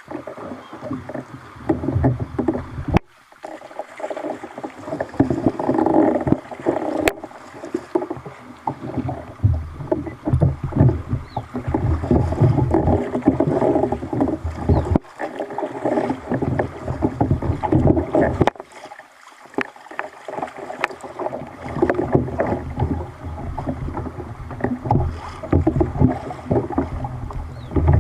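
Water splashing and sloshing around a kayak, an irregular churning noise that breaks off abruptly a few times, like clips cut together.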